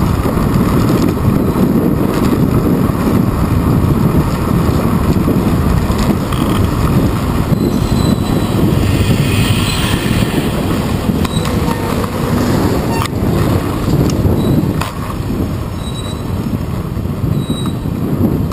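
Wind rushing over the microphone of a handlebar-mounted action camera on a moving bicycle, mixed with the steady rumble of tyres and surrounding city traffic. A bus passes close alongside about ten seconds in, adding a brighter hiss, and there are two light knocks a little later.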